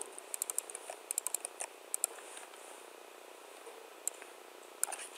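Typing on a computer keyboard: quick runs of keystrokes in the first two seconds or so, then a pause and a few more keystrokes near the end.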